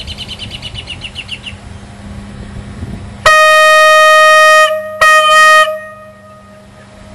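Railroad air horn blown on about 40 psi of compressed air, sounding one steady, fairly high-pitched note. A long blast of about a second and a half comes a little after three seconds in, then a short second blast.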